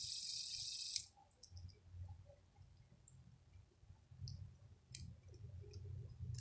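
A steady hiss stops abruptly with a click about a second in, followed by a few faint scattered clicks of fidget spinners being handled.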